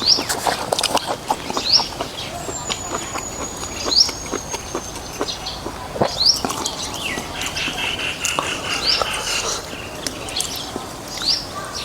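A bird giving a short rising chirp about every second and a half, with a long thin high whistle from about two to five seconds in, over many small clicks and smacks of eating noodles.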